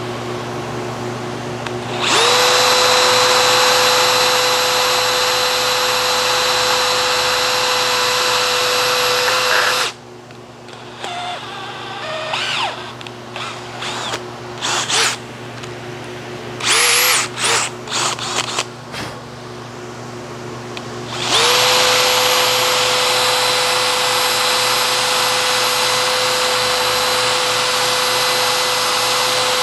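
Electric drill motor spinning up about two seconds in and running steadily while drilling pin holes in steel vise jaws. It stops around ten seconds, gives a few short pulses in the middle, then spins up again about twenty-one seconds in and runs steadily.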